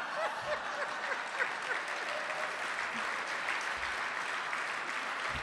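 Audience applauding steadily, with some laughter mixed in over the first two seconds.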